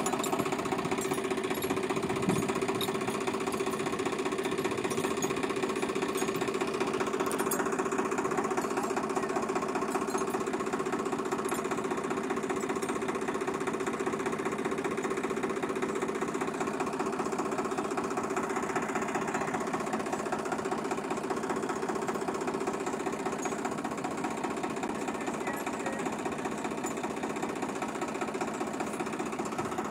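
Diesel tractor engine running steadily with a fast, even knocking chug.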